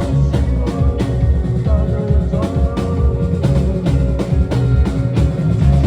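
Rock music with a driving drum-kit beat, about three beats a second, over sustained bass and guitar notes.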